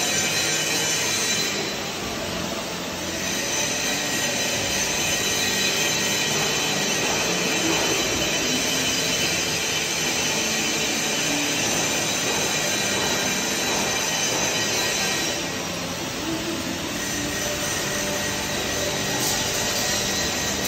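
Hose-fed hand tool working a steel beam: a steady hiss with a high-pitched whine. The whine eases off briefly twice, near the start and again about three-quarters of the way through.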